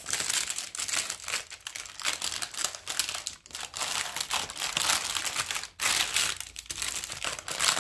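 Taped-down tray lining being peeled and pulled away from a set slab of homemade apple fruit paste: a continuous crinkling, crackling rustle with a couple of brief pauses.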